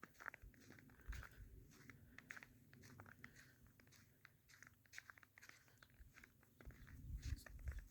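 Faint footsteps crunching in snow, a string of soft irregular crunches, with a low rumble near the end.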